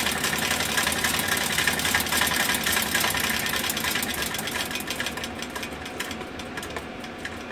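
12-volt DC geared motor driving a treadle fret saw, running with a fast, even rattle. It is run above its rating at 14 volts, drawing about 4.5 amps and getting warm. The sound drops gradually in level and loses its top end over the second half.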